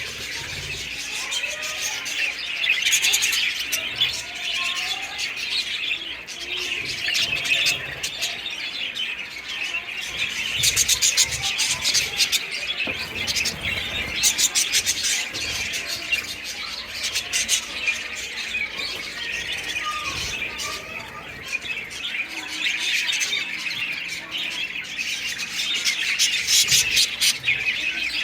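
A flock of home-bred pet birds calling together: a dense, continuous chatter of many overlapping chirps and squawks.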